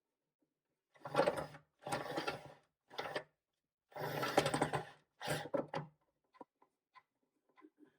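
A small motor-driven tool run in five short bursts of about half a second to a second each, with a steady hum, followed by a few faint ticks and clicks.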